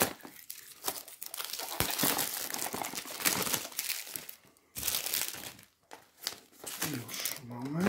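Plastic wrapping crinkling and tearing as a boxed eau de toilette is unwrapped by hand, in several bursts of crackling with short pauses.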